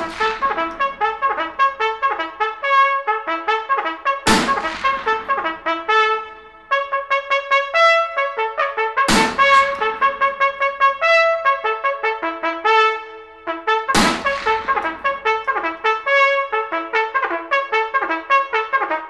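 Instrumental music led by a trumpet playing a quick melody of short notes, with a sharp crash about every five seconds.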